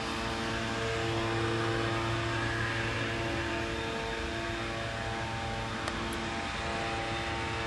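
Steady mechanical drone of a distant engine: a low hum with several held tones above it.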